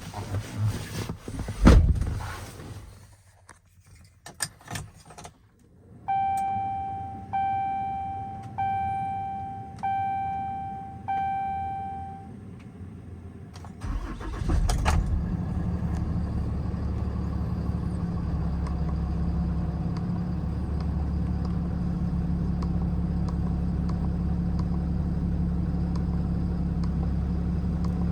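Cold start of a 2014 Ram 5500's 6.7 L Cummins diesel. A few knocks come first, then five evenly spaced dashboard warning chimes, each fading out. About fourteen seconds in the engine cranks briefly and fires, then settles into a steady diesel idle.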